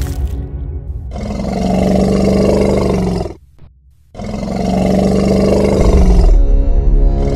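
A cartoon animal roar sound effect: a long, low roar heard twice, with a short silent gap between, over background music.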